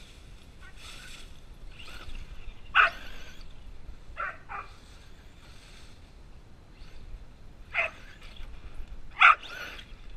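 Husky giving about five short, sharp barks or yips, spaced out, the loudest about three seconds in and near the end.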